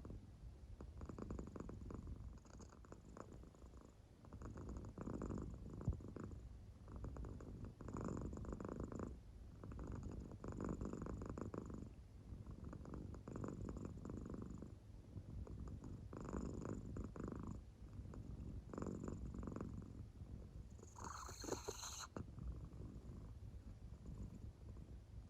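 American Shorthair cat purring softly in deep sleep, the rumble swelling with each breath about every two and a half seconds. A short, higher-pitched sound comes in near the end.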